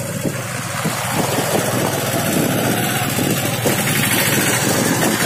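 Suzuki GS150R motorcycle riding at speed, its single-cylinder engine running under a steady rush of wind and road noise, with many small jolts from the rough surface.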